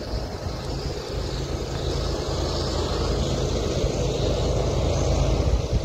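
Union Pacific diesel locomotives leading an intermodal train, their engines rumbling steadily and growing gradually louder as they approach.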